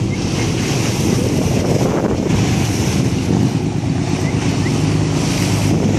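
Wind buffeting the microphone and water rushing along the hull of a moving boat, over the boat's steady low engine hum.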